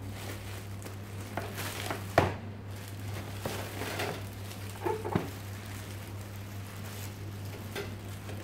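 Clear plastic bag crinkling and rustling as it is pulled off a boxed exhaust fan, with a few sharp crinkles and knocks, the loudest about two seconds in. A steady low hum runs underneath.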